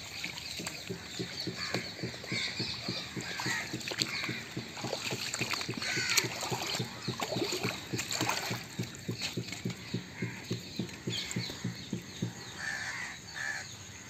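A fast run of soft thumps, several a second, as a freshly caught fish flaps inside a cloth bag. Crows caw over it, most plainly near the end.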